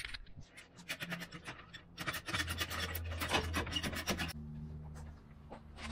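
Hydraulic floor jack being worked to lift the side-by-side: a rapid run of clicks and scraping. A low steady hum takes over near the end.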